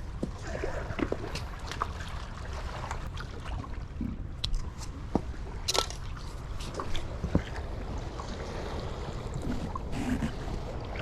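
Water sloshing, trickling and dripping, with scattered small clicks and knocks, as a caught flathead catfish is put on a stringer in the water, over a steady low rumble.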